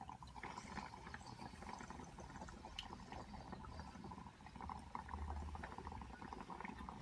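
Several glass dab rigs bubbling faintly as the water in them is drawn through, a steady gurgle made of many small rapid pops.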